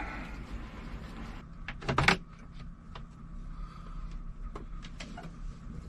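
A sharp clatter about two seconds in, with a few lighter clicks, over a steady low hum.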